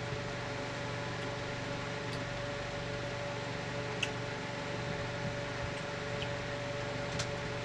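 Steady room hum, with a few faint ticks.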